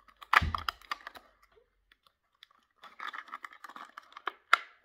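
Clear plastic packaging of a squid jig being handled and pulled open by hand. A loud knock comes about half a second in, then scattered clicks, then a run of dense crinkling and clicking of plastic ending in a sharp snap near the end.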